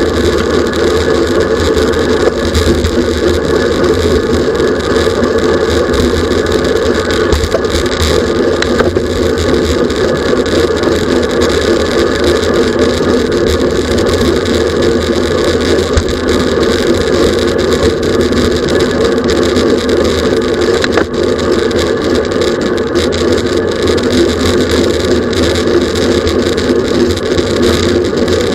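Steady rush of wind and road noise on a bicycle-mounted camera's microphone at racing speed: a loud, unchanging rumble with a low drone.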